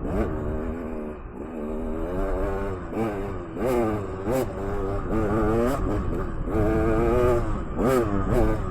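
Dirt bike engine revving up and down again and again as the throttle is worked on rough single-track trail, with a few sharp clacks mixed in.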